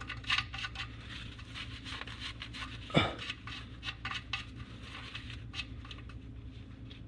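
Light metallic clicks and taps as the oil drain bolt is threaded by hand into the oil pan, started carefully so it does not cross-thread. About three seconds in, a single brief falling sweep is the loudest sound.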